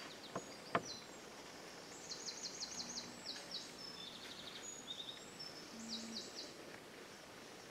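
A songbird singing several quick runs of high, down-slurred notes over quiet woodland ambience. Two sharp clicks come near the start, the second the loudest sound, and a short low hum sounds twice.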